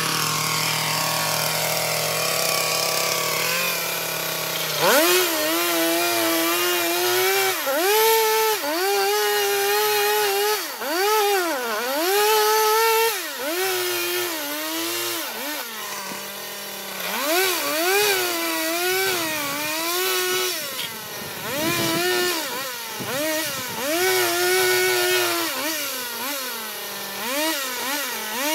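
Chainsaw idling for about five seconds, then revved up and cutting through wooden rafter ends. The engine speed rises and sags over and over as it bites into the wood.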